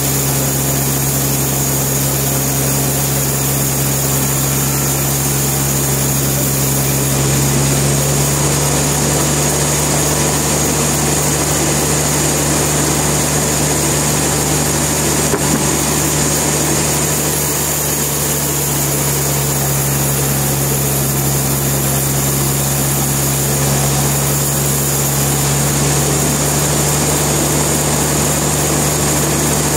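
Sawmill machinery running steadily: a loud, constant machine hum with no break or change.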